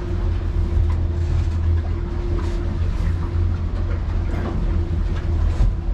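Twin Honda F200 outboards running steadily with the boat underway, heard inside the cabin as a heavy low drone with a steady hum above it and water and hull noise.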